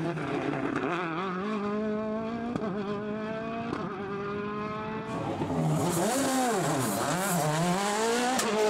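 Citroën DS3 RRC rally car's turbocharged 1.6-litre four-cylinder engine at full throttle, revs climbing through several quick upshifts. About five seconds in the revs swing sharply up and down and a loud hiss of sprayed grit and dust joins in as the car slides through a corner.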